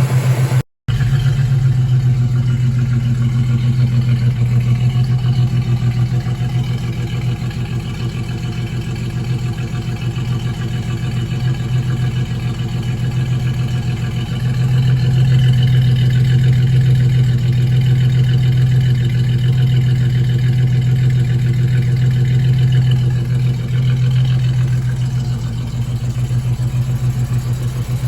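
Truck V6 engine running steadily at idle, a little louder for a stretch in the middle. The engine is being run to check for a suspected rod knock.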